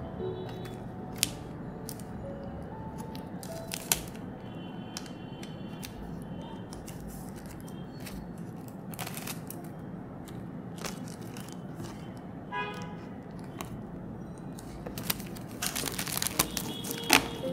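Clear plastic cello sleeves and paper sticker packs being handled and stacked: scattered sharp clicks and rustles, with a louder stretch of crinkling near the end. Soft background music plays throughout.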